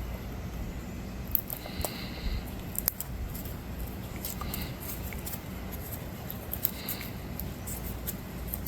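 Scattered light clicks and short rustles of hands handling wires and small parts, over a low steady background hum.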